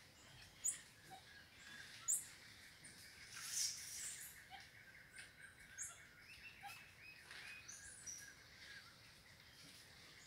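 Faint forest animal calls: a scatter of short, very high chirps a second or two apart, with softer, lower twittering through the middle.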